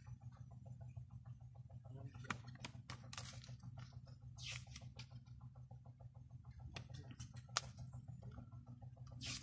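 Paper pages of a CD booklet being turned by hand, with three soft swishing rustles and a couple of sharp clicks from handling, over a steady low hum.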